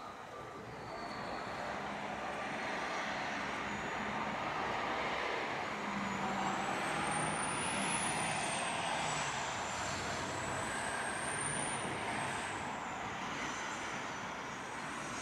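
A heavy road vehicle passing in city traffic, its engine and tyre noise swelling for several seconds and then easing. A thin high whine rises and falls twice as it goes by.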